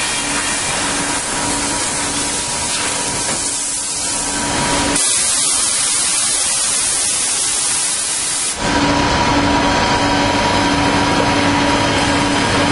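Kaltenbach WBZ 1500 plate drilling and profiling machine running with a steady hum. About five seconds in, a loud hiss starts suddenly, drowns out the hum, and cuts off about three and a half seconds later.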